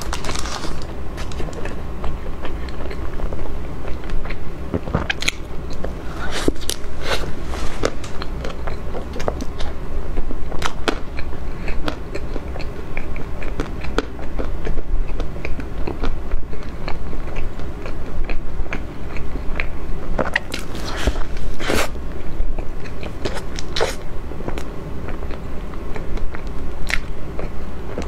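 Close-miked eating on a clip-on microphone: biting and chewing a cream-filled puff pastry, with scattered sharp clicks and crackles from the crust and mouth throughout.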